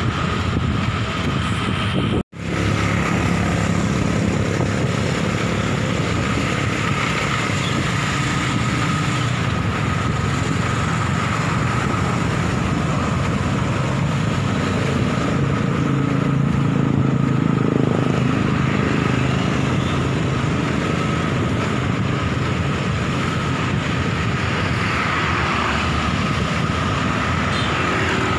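Steady wind and road noise while riding a bicycle on a city street, with motor traffic such as motorcycles in the mix. The sound cuts out for an instant about two seconds in.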